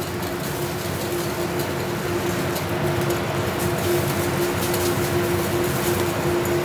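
Steady roar of a commercial kitchen's gas range burning on a high flame and its exhaust hood, with a constant mid-pitched hum.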